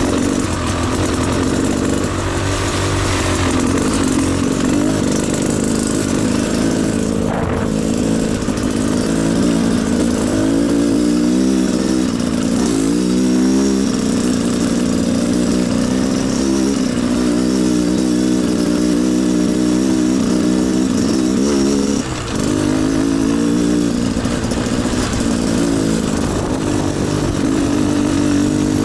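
Beta Xtrainer two-stroke dirt bike engine running on and off the throttle, its pitch rising and falling as the rider works it, with a brief drop in level about three quarters of the way through.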